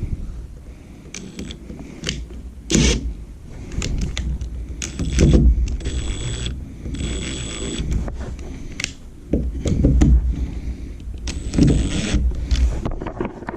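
Handling noise of a plastic wall-mount carbon monoxide detector and its mounting screws being worked on: irregular knocks, clicks and scraping against the wall. Two short high-pitched tones sound about halfway through.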